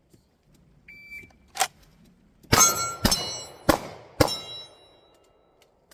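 An electronic shot timer gives a short start beep, then a pistol fires five quick shots, about half a second apart, at steel targets. The plates ring out after the hits.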